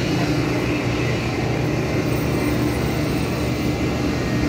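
Daikin VRV outdoor air-conditioning unit running: a steady rush of fan air with a low, even hum.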